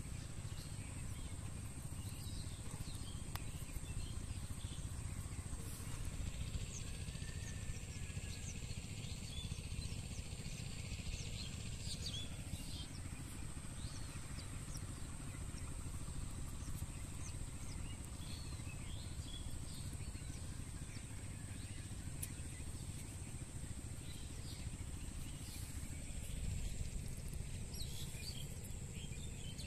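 Open-air rural ambience: a steady low rumble with a thin, steady high-pitched whine, and scattered short bird chirps, most of them in the first half and again near the end.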